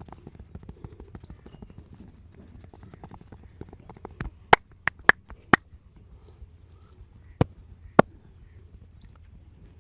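Hands-on massage: faint rubbing and light ticks of hands working on the body, then loud sharp cracks, five in quick succession a little past the middle and two more about two seconds later.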